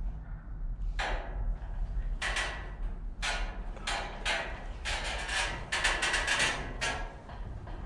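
A run of irregular knocks or clanks, about a dozen over several seconds and some bunched close together, over a steady low hum.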